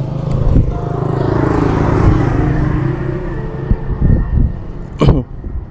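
A motor vehicle running past close by: its engine hum and road noise build to a peak about two seconds in, then fade away. Near the end there is a single sharp knock.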